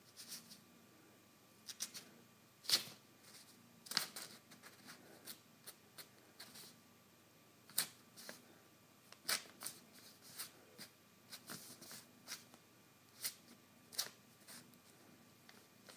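Sheets of printer paper rustling and crackling in irregular bursts as a kitten paws and scratches at them, a few scratches louder than the rest.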